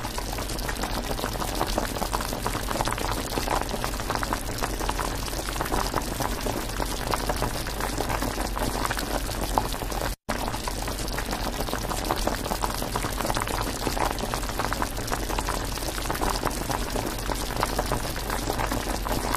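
Food sizzling and bubbling in oil in a miniature frying pan: a steady, dense crackle that briefly cuts out about halfway through.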